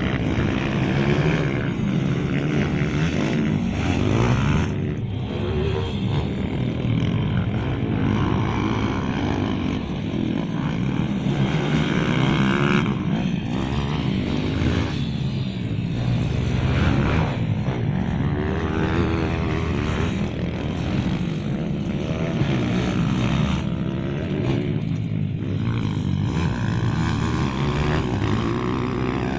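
Several pit bike engines racing on a dirt track, revving up and down in turn so that the pitch keeps rising and falling with throttle and gear changes.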